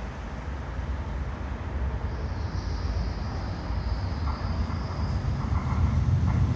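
Korail Line 4 electric multiple unit with Hyundai Rotem VVVF-IGBT traction approaching the station: a low rumble of wheels on rail that grows steadily louder, with a faint high whine joining about two and a half seconds in.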